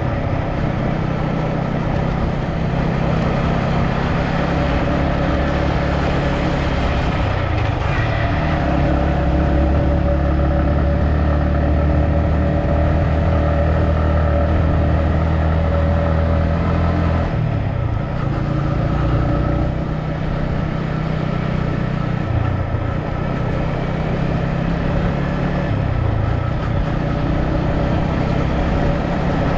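A road vehicle's engine running steadily, its pitch stepping up or down several times as the speed or gear changes, notably about seven seconds in and again around eighteen seconds in.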